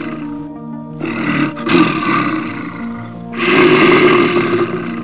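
A large animal roaring in long, harsh bursts: the tail of one roar at the start, then two more, over steady background music.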